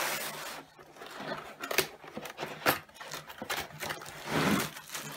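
Cardboard box handled and opened: irregular scrapes and light knocks, with a longer sliding rustle of cardboard about four seconds in.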